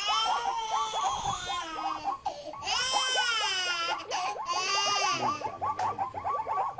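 A baby crying in three long, wavering wails. Underneath, a lower pitched sound repeats several times a second throughout.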